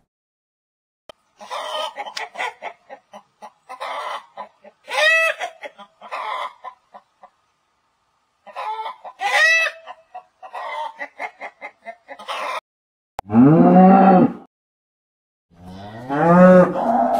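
A hen clucking in short rapid bursts, broken by two longer cackling calls, for most of the clip. Near the end, black-and-white Holstein calves moo twice, each moo low and lasting about a second or more.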